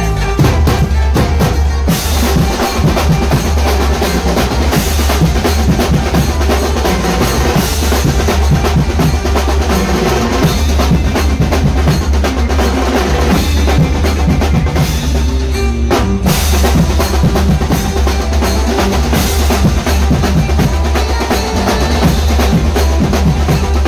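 Maharashtrian banjo party band playing: fast, dense drumming on rows of timbale-style drums, snare drums, bass drum and cymbals, with a saxophone. There is a short break in the drumming about two-thirds of the way through.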